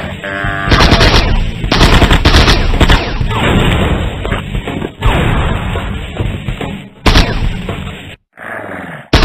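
Cartoon gunfire from a large hand-held gun: loud repeated blasts starting about a second in, over background music, breaking off into a brief silence near the end.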